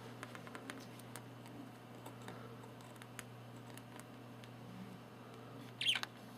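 Budgerigar's beak tapping and clicking lightly on a disc: scattered faint ticks, with one brief louder sound near the end, over a steady low hum.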